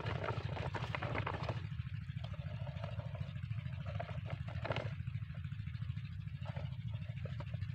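Small diesel engine running steadily, driving an irrigation water pump, with irregular knocks and rustling over it, loudest in the first second or so and again just before five seconds in.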